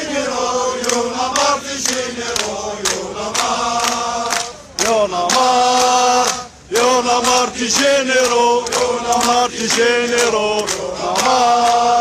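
Large crowd of marching protesters chanting slogans in unison, in loud rhythmic phrases with short breaks between them.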